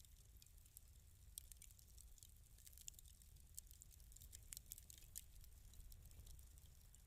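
Fireplace crackling softly: irregular small pops and snaps over a steady low rumble.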